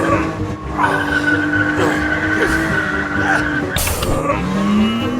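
Car engine sound effect running at a steady pitch, mixed with tyre skidding, then revving up again near the end.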